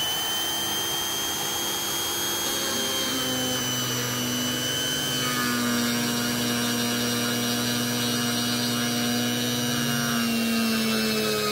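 Ryobi RRT1600-S 1600 W plunge router motor running at speed with a steady high whine. About five seconds in, the bit is plunged into a wooden board and the pitch sags a little as it takes the load of the cut.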